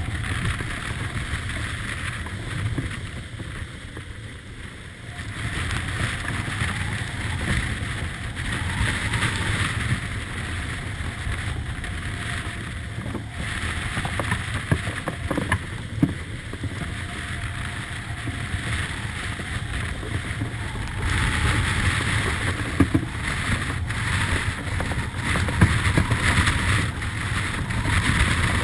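Wind blasting the microphone and water rushing along the hull of a Beneteau 40.7 sailing yacht beating upwind through heavy seas, a steady rushing noise that swells and eases with the waves. It grows louder about three quarters of the way through.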